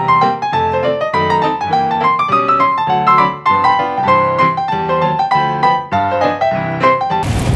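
Background piano music: quick runs of struck notes over low chords, cutting off suddenly near the end into a noisy outdoor hiss.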